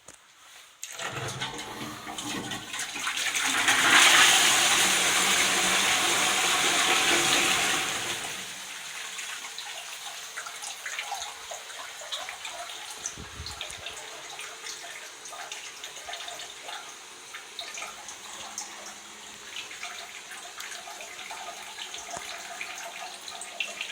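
High-level cistern flushing into an art deco Flood toilet pan. A rush of water builds about a second in and is loudest for several seconds. After about eight seconds it drops to a steady trickle, the pan still running with light drips.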